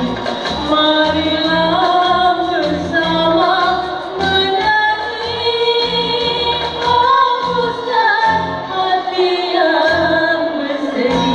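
Female vocals singing a held, gliding melody over a musical backing with a regular bass beat.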